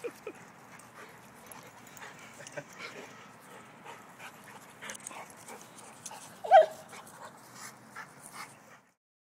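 St. Bernard dog panting and moving close to the microphone, with one brief, loud yelp about six and a half seconds in.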